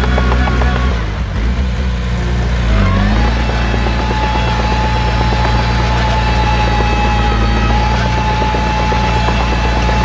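Diesel engine of an earthmoving machine running steadily. It eases off about a second in, then rises in pitch near three seconds as it revs back up, and a steady high whine runs alongside from then on.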